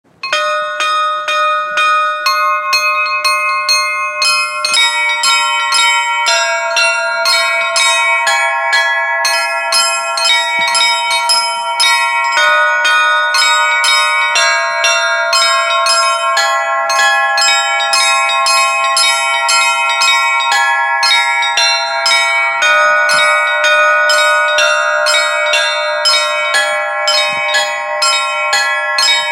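Orthodox church bells rung in a continuous zvon: rapid strikes on several bells of different pitches, their tones ringing on and overlapping.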